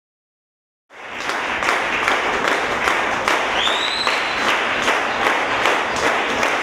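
Concert audience applauding, with dense clapping and one short rising whistle about three and a half seconds in. The applause cuts in suddenly about a second in, after silence.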